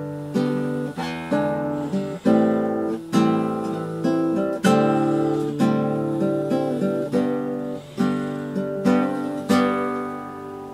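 Background music: an acoustic guitar strumming chords about once a second, fading out near the end.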